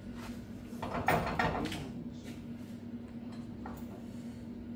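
Metal clicks and a scraping clatter from a bench vise being worked by hand, loudest about a second in, over a steady low hum.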